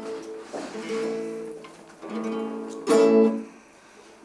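Acoustic guitar strumming chords, several strokes about a second apart. One is struck hardest about three seconds in, then the chord dies away quietly near the end.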